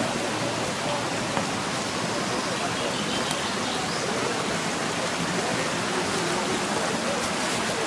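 Steady rushing of a stream, an even hiss of running water with no distinct events.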